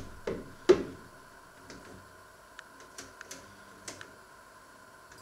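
Oven door being shut, with three knocks in the first second, the last and loudest as it closes. A few light clicks follow between about two and a half and four seconds in as the oven's control knob is turned.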